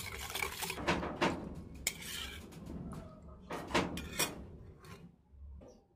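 A utensil stirring a vinegar-and-sugar sauce in a bowl, with irregular clinks and scraping against the bowl as the salt and sugar are dissolved. The clinking dies down near the end.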